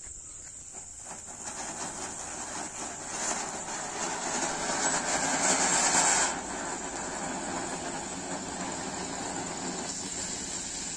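Anar (ground fountain firework) spraying sparks with a steady hiss. The hiss builds over the first few seconds, is loudest around five to six seconds in, then drops suddenly to a lower, even hiss as the fountain dies down. Crickets chirp steadily in the background.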